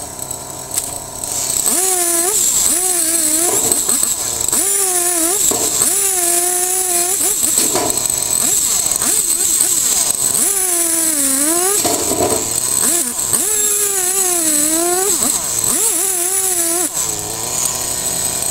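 Husqvarna two-stroke chainsaw revving to full throttle in about five bursts of one to three seconds, dropping back to a lower speed between them. While held at full throttle its pitch sags and wavers as the chain bogs in the cut, bucking a dead hybrid poplar into firewood.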